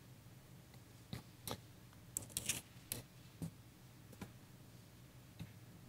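Faint, scattered small clicks and taps, about ten over several seconds with a short cluster in the middle: handling noise of notes and hands at the pulpit over quiet room tone.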